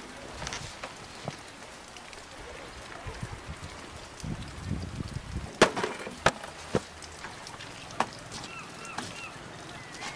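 Several sharp knocks and clunks on a wooden boat deck over a steady wash of wind and water, with a few brief squeaks near the end.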